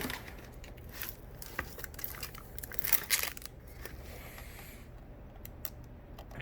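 Packaging being handled: crinkling and rustling, with scattered small clicks and knocks, a little louder about three seconds in.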